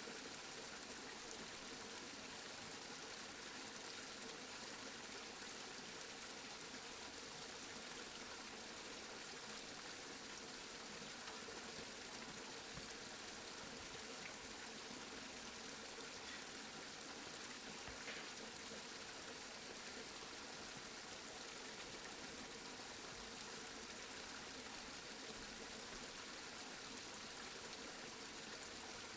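Steady rain falling: an even, unbroken hiss of drops with no thunder, and one slightly louder drop about eighteen seconds in.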